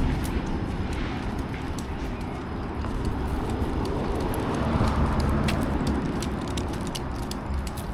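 Footsteps on a trail, with a scatter of sharp crunches and ticks that grow denser in the second half, over a steady low rumble.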